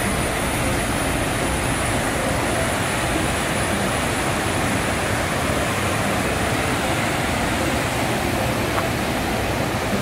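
Waterfall and river in full flow: a steady rush of white water cascading over broad rock slabs.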